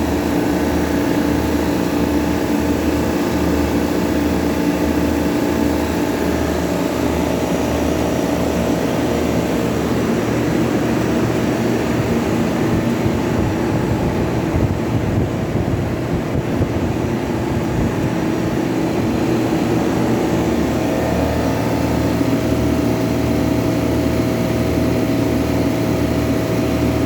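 Refrigeration machinery of an industrial freezer room running after start-up: a steady machine hum with an even pulsing beat and a few steady tones. For several seconds in the middle it turns rougher and noisier, then the even pulsing returns.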